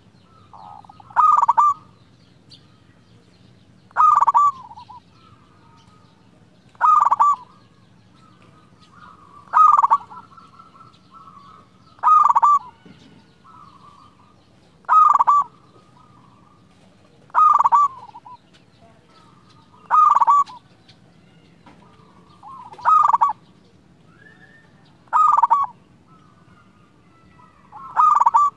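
Zebra dove (perkutut) singing its cooing song: eleven loud, evenly spaced phrases about every two and a half seconds, with fainter calls in between.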